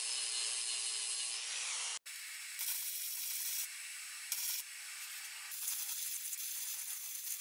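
An angle grinder grinding a steel seat-frame tube for about two seconds, its motor whining steadily over the grinding hiss. Then, after a cut, a flux-core welder's arc crackles in short runs as the frame joints are welded.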